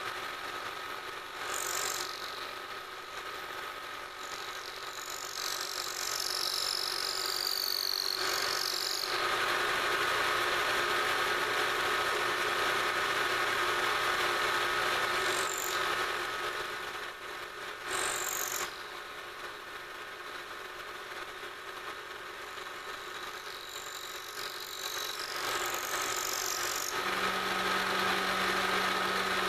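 Milling machine spindle running steadily while an end mill cuts a pocket in a metal part, a constant whine from the machine with high, shifting squeals from the cut that come and go several times.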